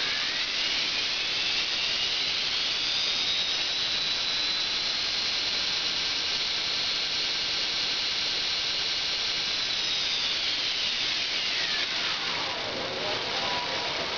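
Zoomie Products Model 66 2x72 belt grinder running on its 1 HP three-phase motor under a variable-frequency drive, the speed set by a potentiometer knob. The whine of motor and belt rises in pitch over the first few seconds as the speed is turned up, holds steady for about six seconds, then falls in pitch as it slows down.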